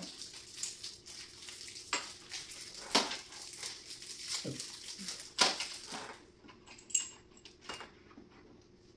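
Scattered clicks, clinks and knocks of nightstand parts and hardware being handled during assembly, over a light rustle; they thin out and grow quieter after about six seconds.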